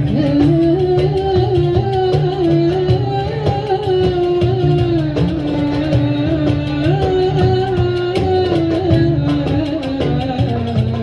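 Folk-style Middle Eastern music: a single melody line moves in held, ornamented notes over a steady bass and light percussion.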